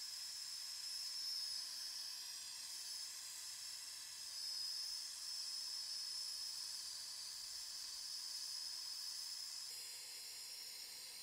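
Acetylene torch flame hissing steadily as a copper tubing joint on a filter drier is brazed.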